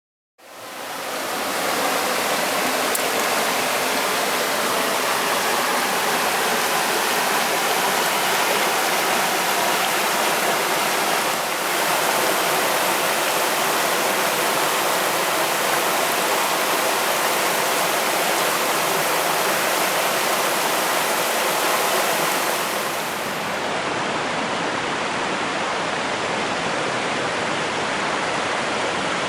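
Steady rush of water in a mountain headwater stream, cascading over rocks. About 23 seconds in it changes abruptly to another stretch of rushing water, a little softer.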